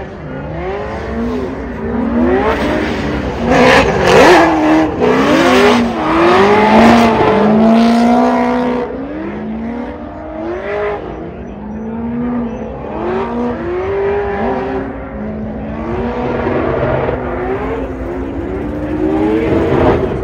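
Two LS V8 drift cars sliding in tandem, their engines revving up and falling back over and over as the drivers work the throttle through the drift, with tyre noise, loudest about three to eight seconds in.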